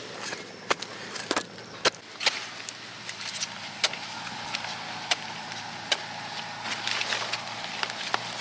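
Irregular sharp clicks and knocks, a few a second, over a faint hiss. A steady mid-pitched hum joins them about four seconds in.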